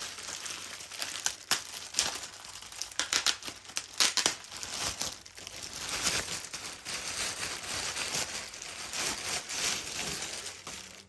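Plastic packaging crinkling and tearing in irregular crackles as a heavy alternator bracket plate is unwrapped.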